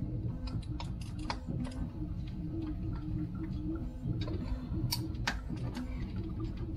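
Irregular small clicks and taps of hand tools and plastic parts as an RC car's chassis is taken apart, over a steady low hum.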